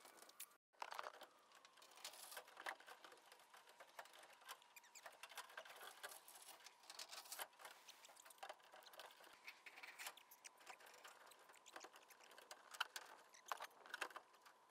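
Faint, irregular clicking, tapping and rustling from hand work on a roof up at the chimney, fitting a chimney cover.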